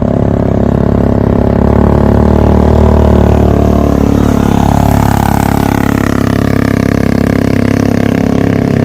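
A vehicle engine running steadily and loud, with a tone that sweeps down in pitch about halfway through.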